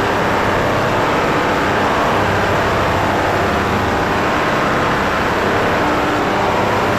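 Ultrasonic cleaner running with its tank full of cleaning liquid: a loud, steady hiss from the bath over a low hum, degreasing a steel gear ring.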